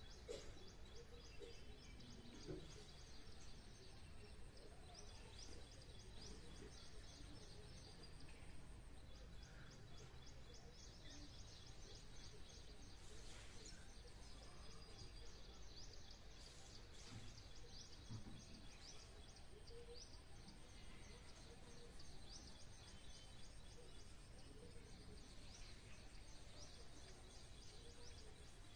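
Faint outdoor ambience with rapid, high-pitched chirping that repeats over a low steady background hum.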